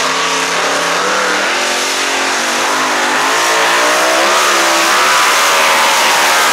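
Twin V8 engines of a modified pulling tractor running hard under load as it hauls the weight sled, the engine note wavering and climbing in pitch and growing louder about three seconds in as it pulls away.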